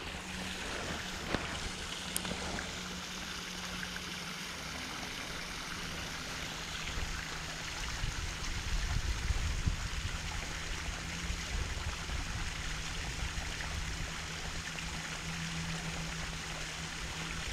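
Creek water running steadily, with a faint steady hum underneath and a low rumble about halfway through.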